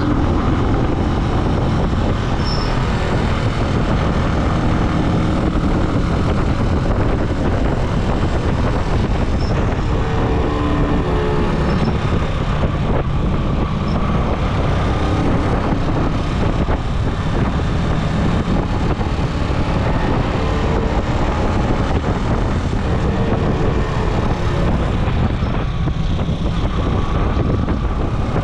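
Steady noise of a vehicle on the move, engine, road and wind blended together, running on without a break.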